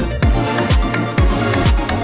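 Electronic dance music with a steady kick drum, about two beats a second, and crisp percussion over it.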